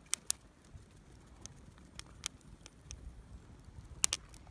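Wood campfire crackling, with a few sharp pops scattered through, two of them close together near the start and two more near the end.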